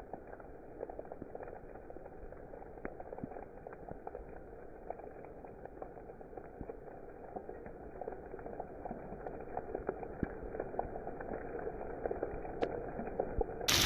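Steady rain falling, a dense hiss with many small drop ticks that grows a little louder over time. Right at the end a sudden loud burst of noise cuts in.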